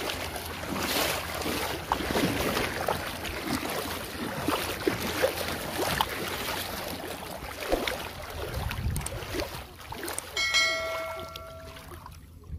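Water splashing and surging as a person wades quickly through waist-deep water. Near the end a short ringing chime sounds.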